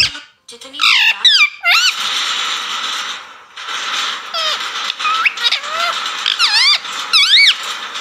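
Rose-ringed parakeet squawking: a string of shrill screeches that swoop up and down in pitch, a cluster about a second in and more through the second half.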